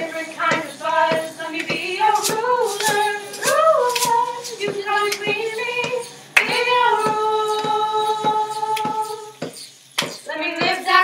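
Girls' voices singing together in held, wordless harmony over clapped and tapped body percussion, about two beats a second. A sharp accent about six seconds in opens a long held chord, which breaks off briefly before the singing returns near the end.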